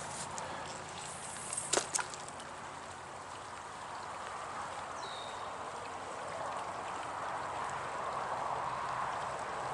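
Trout stream water flowing steadily, with a couple of short clicks about two seconds in.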